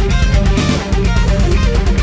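Distorted electric guitar and electric bass playing a heavy metal riff together over a steady beat.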